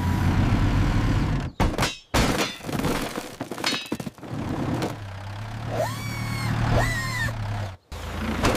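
Cartoon sound effects of a bulldozer: a low engine rumble with several sharp knocks and crashes as the blade hits safety cones and scatters them. Two short rising tones come near the end.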